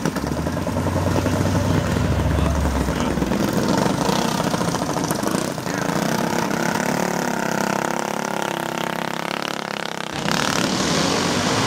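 Small minibike engine running as a rider goes by on the street, its pitch shifting as it passes, with a sudden change in the sound about ten seconds in.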